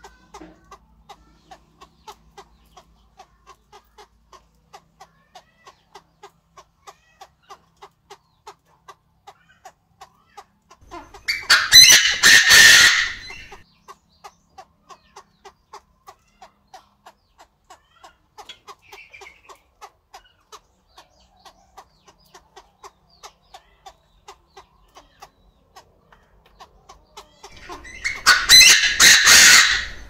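A Chinese francolin calls loudly twice, each call a quick run of notes lasting about two seconds, about twelve seconds in and again near the end. A faint, regular ticking runs underneath.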